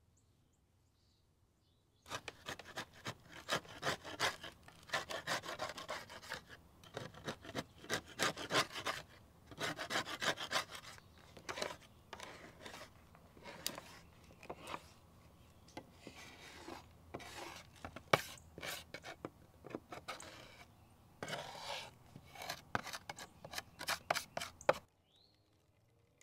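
Flat metal scraper blade scraping dried pigeon droppings off the bottom of a metal tray, in rapid rasping strokes that come in uneven bursts. It starts about two seconds in and stops near the end.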